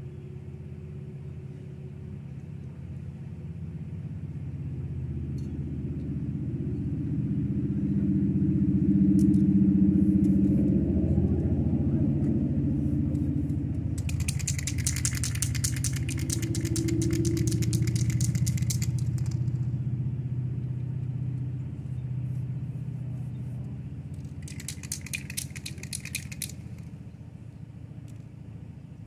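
Aerosol spray-paint can hissing in two bursts: one of about five seconds near the middle and a shorter one of about two seconds near the end. Underneath is the low rumble of a passing vehicle that swells, stays up for a while, then fades.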